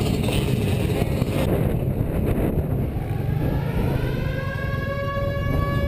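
Several dirt bike engines idling together in a start line. About halfway through, a rising whine sets in and then holds at one steady pitch.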